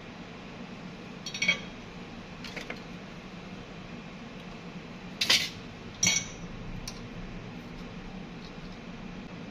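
Small metal repair tools clinking and tapping against a phone and the bench: about five sharp, light clinks, the loudest two a little after the middle, over a steady low hum.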